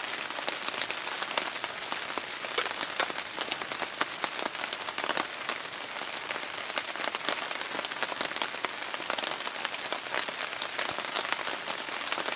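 Twigs burning in a small folding metal wood stove: a steady hiss with many sharp crackles and pops as the freshly lit fire takes hold.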